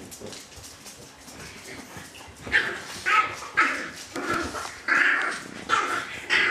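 French bulldogs play-fighting: after a quieter start, a run of about seven short, loud yaps and barks begins about two and a half seconds in, coming roughly every half second to second.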